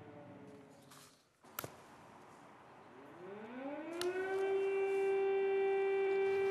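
Civil-defence air-raid siren sounding an alert: about halfway through it winds up, rising in pitch, then holds one steady tone. Before the rise there is a sharp click, and a faint falling tone fades out in the first second.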